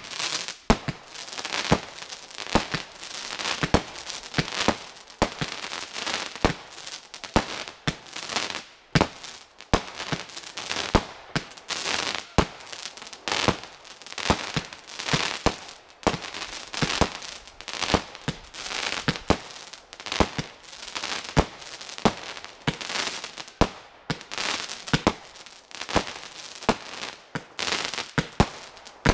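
Aerial fireworks going off in quick succession, starting suddenly: a sharp bang every second or so over continuous crackling from golden crackling star bursts.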